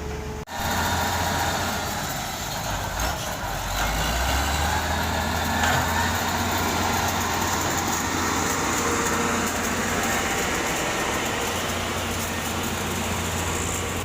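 Heavy diesel construction machinery running steadily with a deep engine hum, after a brief dropout about half a second in.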